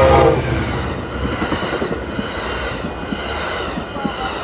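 Amtrak Capitol Corridor train passing close by at a grade crossing: the horn of its EMD F59PHI diesel locomotive cuts off about half a second in, and the bilevel passenger cars then rumble past with wheels clicking over the rail joints and the crossing. The crossing bell rings throughout.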